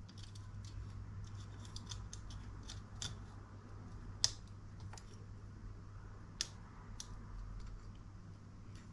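Small plastic clicks and taps as a scale-model dashboard part and its wiring are handled and pressed together, with two sharper clicks about four and six and a half seconds in.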